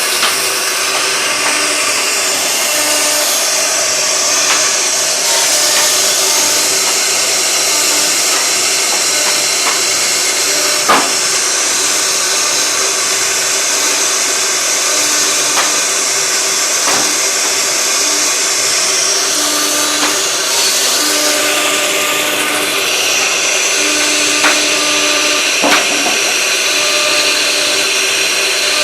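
CNC router running, its spindle cutting wood with a steady high whine. Short steady tones from the axis motors come and go, with a few sharp clicks along the way.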